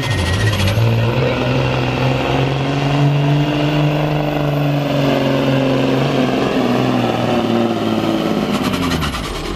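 Freightliner semi truck's diesel engine working under full load, pulling a weight sled. Its steady pitch rises slightly midway, then drops near the end as the truck slows.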